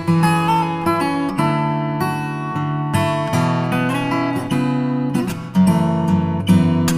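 Acoustic guitar music, with plucked and strummed notes following one another steadily.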